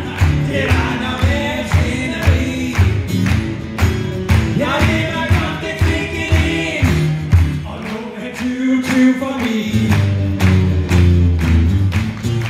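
Live acoustic duo: steel-string acoustic guitars strummed in a steady rhythm under a man singing.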